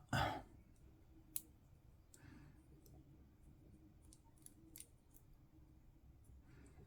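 A few faint, sharp clicks of small plastic miniature parts being handled and pressed together, the clearest about a second and a half in.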